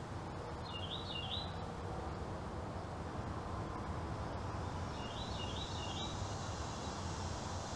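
A songbird sings a short phrase of quick rising-and-falling notes twice, about four seconds apart, over a steady low outdoor background rumble.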